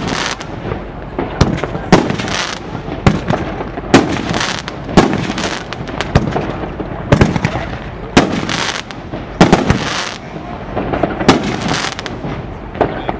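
Fire & Ice nine-shot 500 g firework cake firing: shells burst in the air with a sharp bang about every second, and the crackle of glittering stars follows each break.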